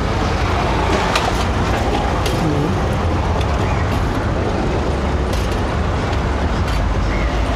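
Steady street traffic noise with a low rumble, with a few light clicks of steel tongs against a perforated steel tray as jalebis are picked up.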